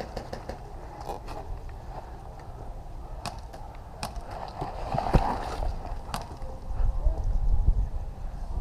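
A large tube rolling and bumping over hard ground: a low rumble that swells twice, with scattered sharp knocks.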